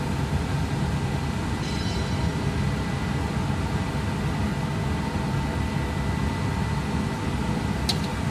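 Machinery running with a steady low rumble and a faint steady whine, and one short sharp tick near the end.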